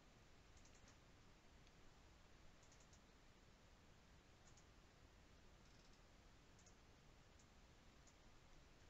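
Near silence, with a handful of faint computer mouse clicks spread through it, about one every second or so.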